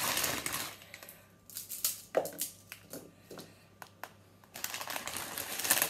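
Plastic packet of dried egg noodles crinkling as it is squeezed and crumpled by hand: a burst at the start, a few scattered rustles and clicks in the middle, and a longer burst near the end.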